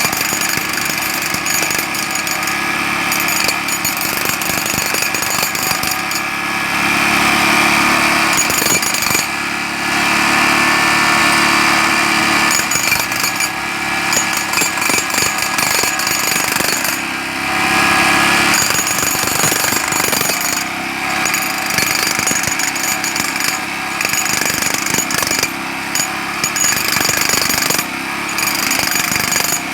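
Jackhammer hammering continuously in a rapid stream of blows, with louder stretches about 7, 10 and 17 seconds in.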